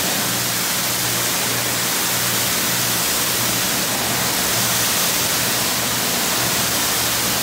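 Pressure-washer spray jetting water onto a car's windshield and hood: a loud, steady hiss of water with a low hum underneath.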